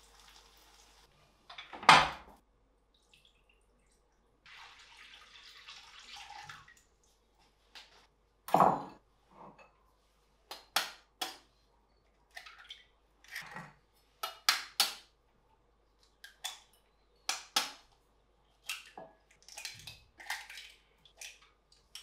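Eggs cracked with a kitchen knife over a glass bowl: a long run of sharp taps and cracks on the shells. It opens with beaten egg hissing as it pours into simmering water in a pan, and two loud knocks come before the cracking.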